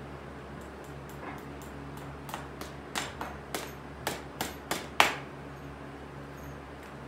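About ten sharp taps on a pony's held-up front hoof, coming in quick irregular succession from about a second in and growing louder, with the last and loudest about five seconds in.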